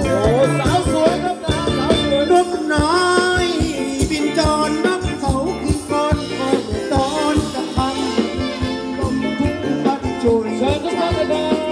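Thai ramwong dance music from a live band: a steady drum beat with keyboard and singing over it.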